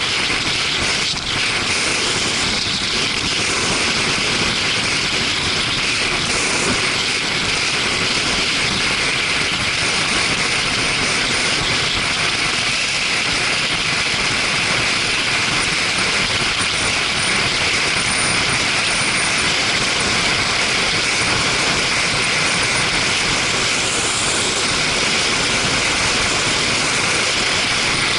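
Steady wind rush and engine noise of a Suzuki GW250 Inazuma motorcycle riding along, heard on an action camera's microphone.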